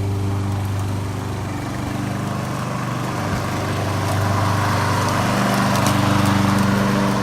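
Engine of an Evatech hybrid GOAT 22T remote-control slope mower running steadily, getting louder about four seconds in.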